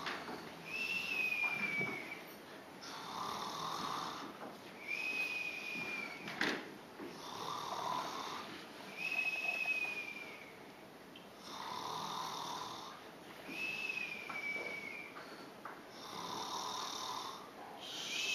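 Person snoring: each snore followed by a thin whistle that falls slightly in pitch, the pair repeating about every four seconds.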